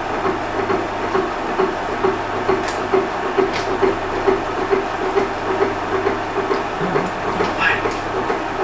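A machine drill running under load, cutting through a steel part: a steady hum with a regular pulsing chatter a few times a second and a few sharp ticks.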